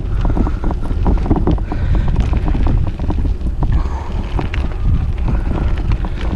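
Wind buffeting a GoPro Hero 5 Session's microphone as a bike rides a rough trail: a steady low rumble with many quick clicks and rattles from the bike jolting over the ground.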